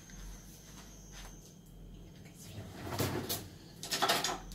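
Faint kitchen handling noises: a few short knocks and clatters about halfway through and again near the end, over a quiet room with a faint steady high whine early on.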